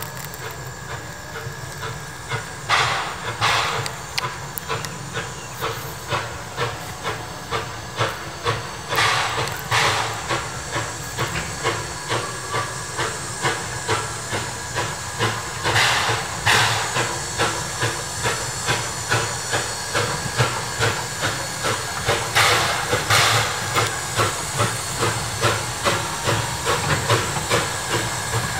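4-4-0 steam locomotive working past with its train: steady exhaust chuffs, about two a second, over a constant hiss of steam. Every six or seven seconds comes a louder pair of hissing blasts. The whole grows louder as the engine draws near.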